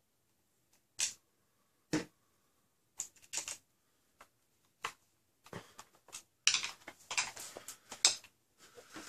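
Separate sharp clicks and light knocks of hard clear-plastic blaster parts being handled on a tabletop, about one a second, then a denser run of clattering and rustling over the last few seconds as small screws and parts are handled.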